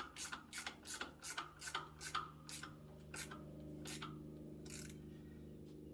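Hand ratchet wrench worked back and forth to tighten an alternator mounting bolt, the pawl rasping over its teeth on each return stroke. The strokes come about three a second, then slow to three strokes about a second apart and stop near the end.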